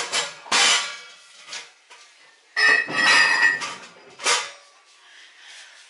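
Kitchenware clattering and clanking as someone rummages through cupboards. There are separate bursts: one about half a second in, a longer, louder clatter with a ringing note around three seconds in, and a short knock a little after four seconds.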